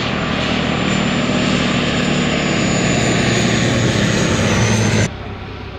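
Bombardier DHC-8 Q400's Pratt & Whitney PW150A turboprops and six-blade propellers on landing approach: a loud, steady propeller drone that grows louder as the aircraft nears. About five seconds in it cuts off abruptly to a much fainter drone.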